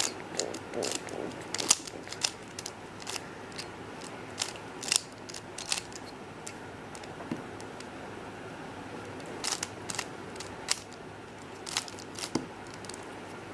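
Layers of a DaYan ZhanChi 3x3 speed cube being turned by hand: irregular sharp plastic clicks, some in quick runs, as the edge pieces are worked into the white cross.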